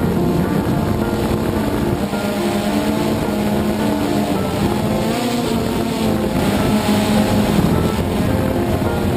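Background music: held notes changing pitch every half second or so over a dense, steady texture.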